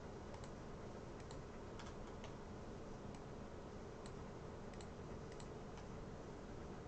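Irregular, scattered clicks of a computer keyboard and mouse while working in 3D software, about ten in all, over a faint steady hiss.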